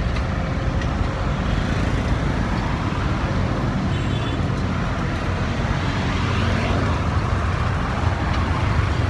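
Steady, continuous noise of traffic on a busy road.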